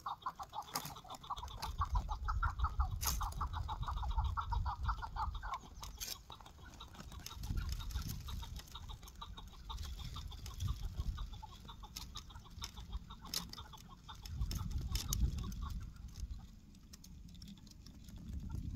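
Chukar partridge calling: a rapid run of clucking notes for about the first five seconds, then fainter, scattered calls, over a low rumble.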